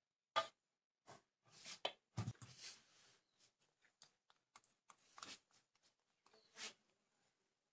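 Faint clicks and scrapes of a spoon against a mixing bowl as cake batter is spooned out, with a sharp click just under half a second in and a few light knocks and rustles as the bowl is lifted and moved.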